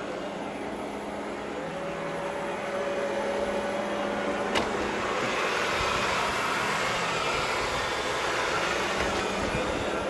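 Philips SmartPro Active robot vacuum's suction fan and brushes running with a steady whir. A sharp click comes a little under halfway through, after which the fan runs louder at raised vacuum power.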